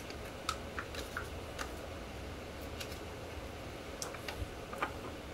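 Scattered light clicks and taps of a plastic yogurt cup against a plate as yogurt is emptied onto mayonnaise for ranch sauce.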